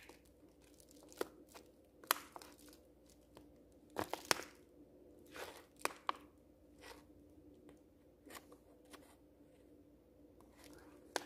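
Brown paper mailer envelope being worked open: scattered crinkles, tears and a few sharp paper snaps, loudest about 2 and 4 seconds in, over a faint steady hum.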